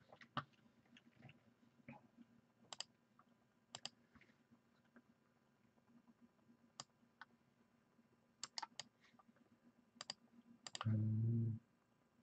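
Scattered computer mouse clicks and keystrokes, several clicks in quick pairs. About a second before the end, a short low buzz lasting under a second is the loudest sound.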